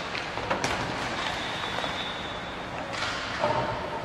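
Table hockey game in play: a few sharp clicks and clacks of the puck and plastic players over a steady background noise.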